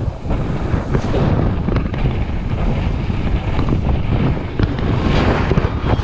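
Strong wind buffeting the camera's microphone: a loud, unbroken rumble that grows brighter and hissier near the end as a gust picks up.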